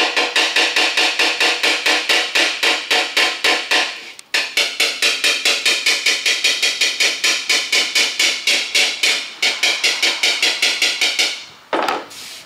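Body hammer tapping fast and evenly on a motorcycle fender with a dolly held behind the panel, about six ringing metallic taps a second, dollying out high spots in the sheet metal. The tapping breaks off briefly about four seconds in and stops shortly before the end.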